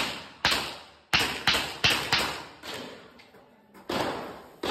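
Handgun shots fired in quick strings during a practical-shooting course of fire. About eight shots come in the first two and a half seconds, then a short lull, then more shots near the end, each trailing a brief echo under the range's roof.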